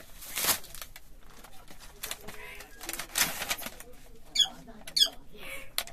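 Plastic packaging crinkling in short bursts as a parcel is unwrapped, with two sharp bird chirps about four and a half and five seconds in.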